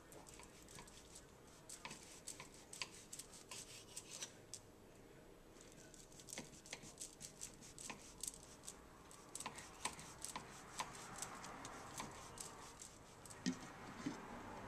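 A kitchen knife slicing through a stack of tortillas on a counter: faint, irregular crisp clicks and scrapes as the blade saws through the layers, with a slightly louder knock near the end.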